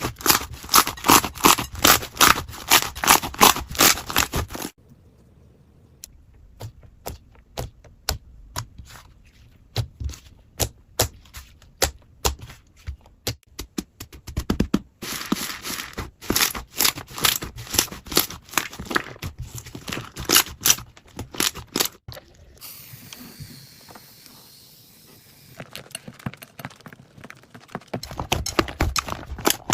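Slime being worked, giving rapid crackling clicks and pops. Dense stretches of crackling come at the start, again from about the middle, and again near the end, with sparser, quieter clicks in between and a short soft hiss a little after two thirds of the way through.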